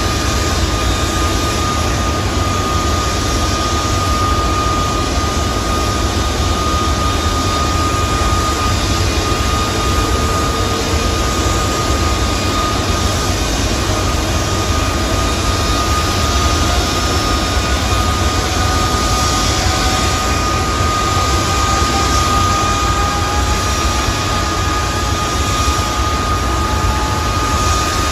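Airbus A330-300 jet engines running at taxi power: a steady rumble with a constant high whine over it. A fainter second whine rises slowly in pitch through the middle.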